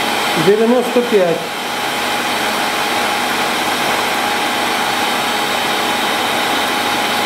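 Steady whirring drone of workshop machinery running. A man's voice murmurs briefly about half a second in.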